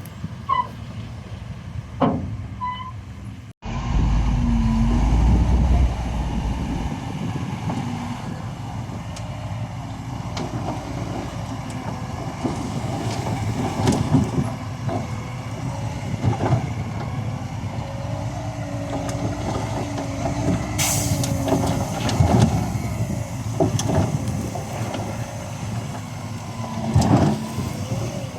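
Heavy diesel construction machinery at work: a steady engine rumble with scattered metallic clanks and knocks and a wavering whine. The sound breaks off abruptly about three and a half seconds in and comes back louder, with a deep rumble for the next few seconds.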